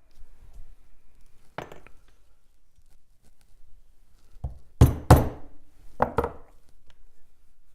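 Hard objects knocking and clinking on a workbench: a single knock, then about three seconds later a run of five sharper knocks and clinks over about two seconds, the two loudest close together near the middle.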